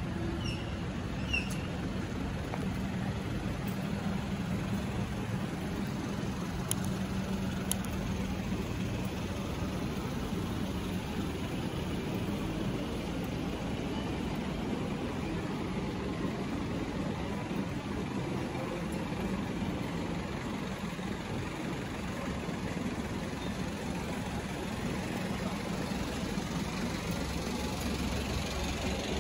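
City street ambience: a steady hum of traffic, with vehicle engines running and idling. A couple of brief high chirps come about a second in.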